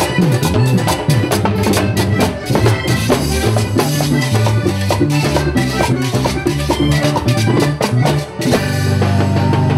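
Live vallenato band playing an instrumental passage: diatonic button accordion over congas, a metal guacharaca scraper, drums and electric bass, with many quick percussion strokes. Near the end the band settles into a long held chord.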